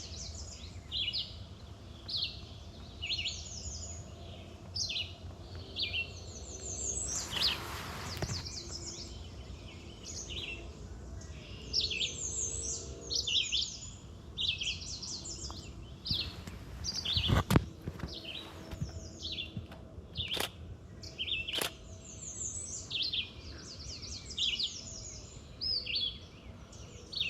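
Several songbirds singing in woodland, a dense run of short, high chirping phrases several times a second. A brief rushing noise about a quarter of the way in and a few sharp clicks in the second half.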